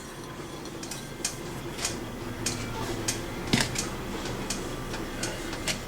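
Raw shrimp being placed one by one into a small bowl of dry spice mix: a run of short, light clicks and taps, about two a second, over a faint steady hum.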